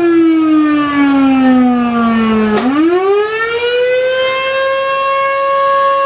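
Fire company's major siren wailing. Its pitch falls slowly to a low point a little over two seconds in, then rises quickly and holds steady at its top note.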